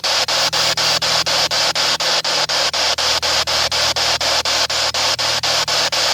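Spirit box sweeping through radio stations: steady loud static chopped by brief dropouts about five times a second, with a low hum underneath.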